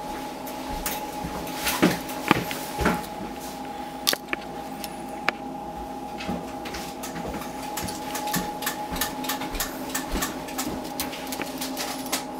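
Small clicks and taps of hands working on a disassembled mobile phone, pressing and fitting its small metal and plastic parts into place. A few louder knocks come in the first four seconds, then a quick run of faint clicks, over a steady hum.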